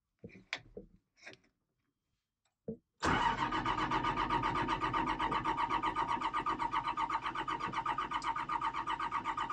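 Allis-Chalmers 200's six-cylinder diesel engine cranking over on the starter with an even, rhythmic chug, but not firing: a hard start that won't catch. A few light clicks come before the starter engages about three seconds in.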